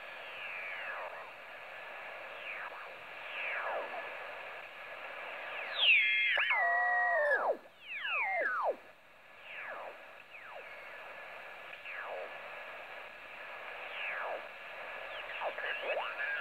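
TEN-TEC SP-325 shortwave receiver in upper sideband being tuned up through the 20-metre band. Steady band hiss is crossed every second or so by thin whistling signal tones that fall in pitch as the dial sweeps past them. The loudest is a cluster of several tones stepping down together about six seconds in.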